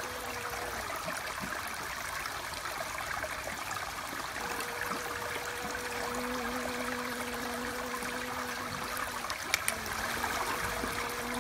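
Honeybee buzzing, a steady hum that comes and goes: briefly at the start, then again through the second half. Beneath it is a steady rushing background like running water, with two short clicks near the end.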